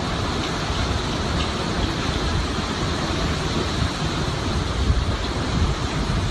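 Hurricane wind and driving rain, a steady, unbroken rush of noise.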